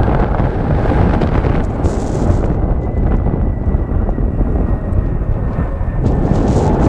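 Strong wind buffeting the microphone: a loud, steady rumble with gusty surges.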